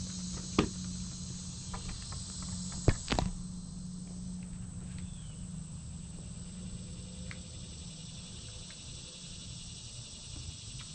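A few sharp clicks and knocks from handling the meters and test leads, one about half a second in and a loud pair around three seconds, over a steady high-pitched background hiss and a low hum.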